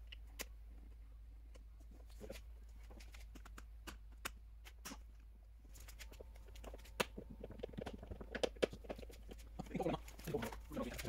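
Scattered faint clicks and taps from hands and tools working the plastic clips and screws of a car's front bumper, coming more often in the second half.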